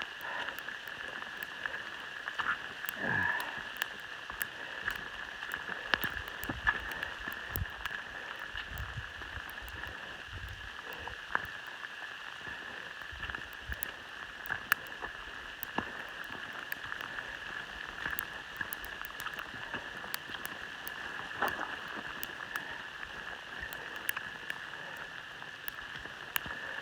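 Sleet falling steadily, the pellets hitting in a dense patter of small sharp ticks over a constant hiss.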